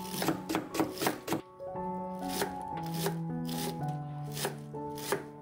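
Kitchen knife chopping green onion and then garlic chives on a wooden cutting board: a quick run of strikes in the first second and a half, then slower single chops, over background music with held notes.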